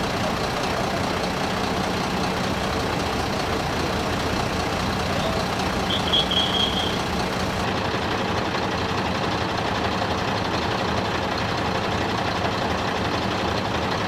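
Fire truck's diesel engine running steadily at idle, with a brief high tone about six seconds in.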